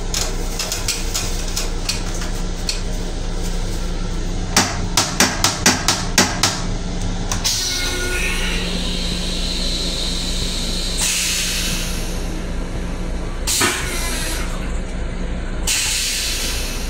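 Steady low hum inside a moving LIRR M7 railcar's restroom. About five seconds in there is a quick run of sharp clicks, and three short bursts of hiss come in the second half.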